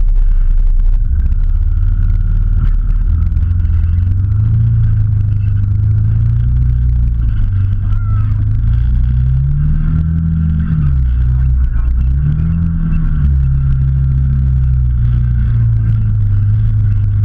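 Off-road vehicle's engine running while driving over a rough forest track, heard close up from the bonnet; it revs up and eases off twice near the middle, then settles to a steady note.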